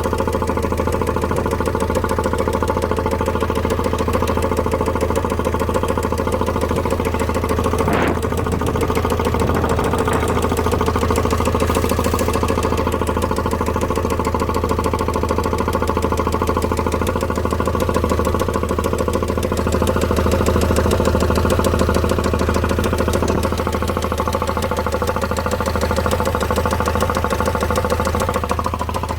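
Vauxhall Vivaro's M9R 2.0 diesel engine idling steadily with a rapid, even knock, with one sharper click about eight seconds in. The knock comes from a failed bottom end: the crank bearings had spun from lack of oil feed and a failing oil pump.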